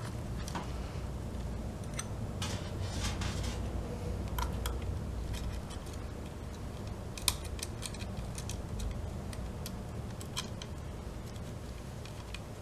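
Small clicks and rattles of the plastic and metal parts of a Suzuki GSX-R600 fuel pump assembly being handled and fitted together by gloved hands, with one sharper click about seven seconds in, over a low steady hum.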